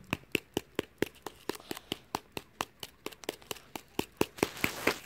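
Hammer striking a crumpled aluminium-foil ball in a steady, fast rhythm of sharp taps, about four a second. This is the pounding stage of making a Japanese foil ball, which flattens the crumpled foil toward a mirror-polished sphere.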